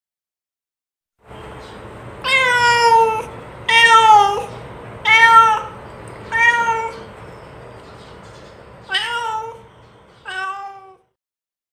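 A domestic cat meowing six times, each meow under a second long, with a longer gap before the last two.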